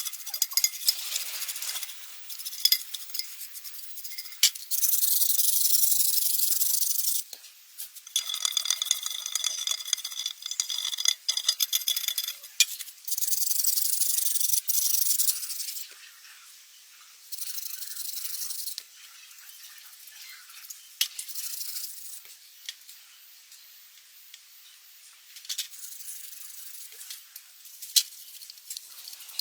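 Repeated spells of scraping or rubbing on metal truck-axle parts, a few seconds each, broken by short pauses and a few sharp clinks.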